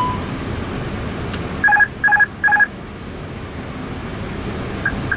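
Three short electronic beeps from an Airbus A320 cockpit's alert system, each a two-tone pip, sounding about two seconds in over the steady rush of air noise on the flight deck.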